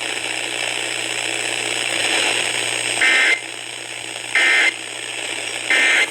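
Radio hiss with a low hum, then the Emergency Alert System end-of-message code: three short, identical digital data bursts, each about a third of a second long and evenly spaced, sent just after the test is announced as concluded.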